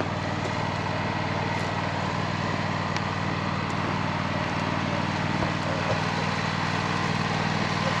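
An engine running steadily at an even idle.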